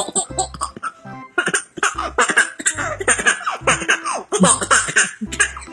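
A baby laughing in repeated short bursts of giggles and belly laughs, over background music with a steady bass beat.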